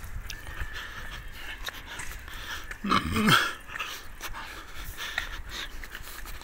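Footsteps on asphalt while walking, with one short, loud vocal cry that falls in pitch about three seconds in.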